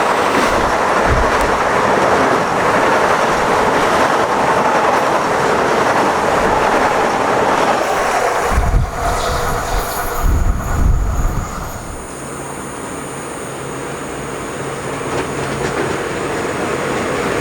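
A train passing at speed on the main line: a loud, steady rush of wheel-on-rail noise with some clickety-clack and a faint whine, with deep low thumps around the middle. The noise eases off about twelve seconds in.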